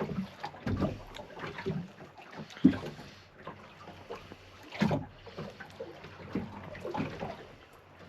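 Irregular small knocks, clicks and scrapes of a kina (sea urchin) shell being handled and picked at while it is eaten. The sharpest knock comes a little under three seconds in, with another near five seconds.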